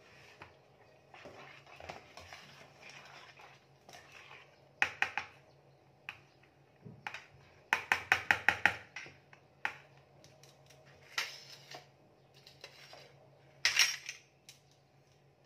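Spoon and bowls clinking and clattering: scattered knocks, then a quick run of about eight clinks a little past the middle as wet cake ingredients are stirred in a ceramic bowl, and a sharp clatter of utensils near the end.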